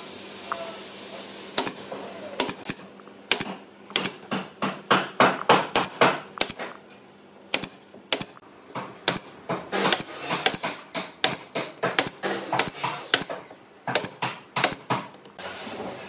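An irregular run of sharp taps and clicks, several a second, with a lull about halfway through.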